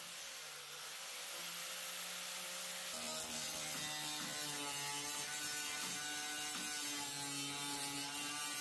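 Power tool running steadily on sheet metal, its tone changing about three seconds in.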